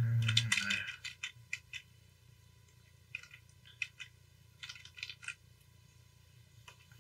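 Clusters of short, sharp clicks and taps, after a louder, brief low sound right at the start.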